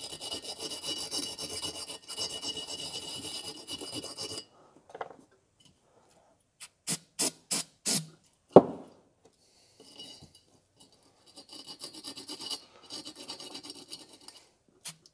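Rifle bore brush scrubbing inside the filler hole of a Coleman lantern's steel fount for about four seconds. It is followed by five short spray bursts from an aerosol can into the hole and a single knock. Near the end the fount is handled and shaken, with a little loose rust rattling inside.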